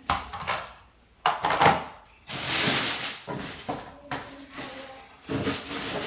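Handling noises from vacuum-cleaner parts and packaging: a few sharp knocks and clatters of hard plastic, and a rustling hiss about two seconds in, followed by more light clicks.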